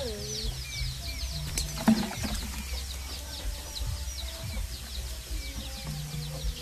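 Small birds chirping busily and steadily, with a chicken's falling cluck at the start and a single sharp knock about two seconds in.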